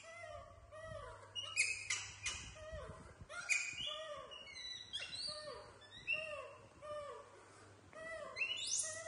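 Several baby macaques calling, a run of short coos that rise and fall in pitch and overlap one another, with some shriller squeaks among them. These are infants' calls for their mother while they wait for food.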